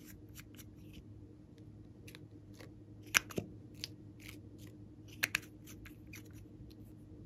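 A plastic lip gloss tube and its cap handled: a run of short clicks and taps, with two sharp snaps, about three and five seconds in.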